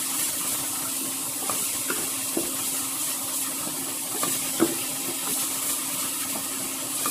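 Masala of spice powders and a little water sizzling in a frying pan with a steady hiss, while a spatula stirs it, giving a few short taps and scrapes.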